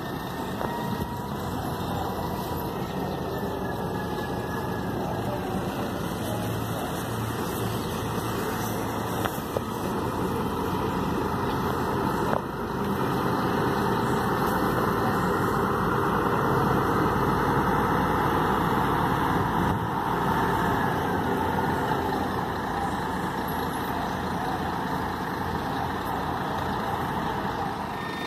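Diesel engine of an intercity coach running as the bus moves slowly past close by, growing louder around the middle and easing off toward the end.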